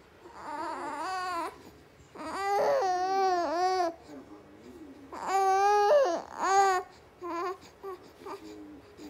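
A two-to-three-month-old baby vocalizing in three long, wavering wails, with a few shorter sounds near the end: fussy crying or complaining.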